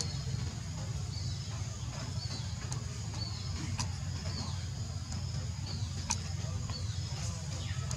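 Outdoor ambience: a steady low rumble under a constant high-pitched buzz, with short chirps that fall in pitch every second or so and a few sharp clicks.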